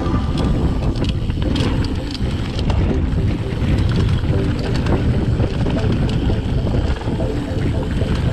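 A YT mountain bike ridden fast down a dirt forest trail: wind buffeting the action camera's microphone over a steady tyre rumble, with frequent small clicks and rattles from the bike.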